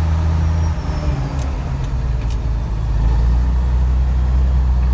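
Diesel engine of an old bonneted Scania truck running, heard inside the cab. About a second in its steady hum breaks up unevenly for a couple of seconds, then settles into a steady, louder run.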